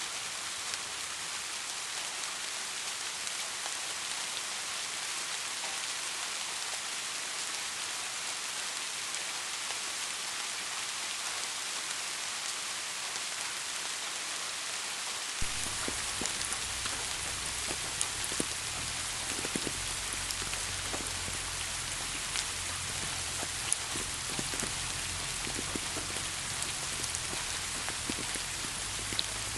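Steady rain hissing. About halfway through the sound changes abruptly: a low rumble joins in and individual drops tick and tap sharply over the hiss.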